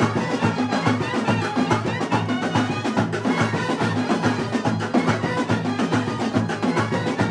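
Brass band of trumpets, clarinets, saxophones and drums playing a fast dance tune over a steady, driving drumbeat.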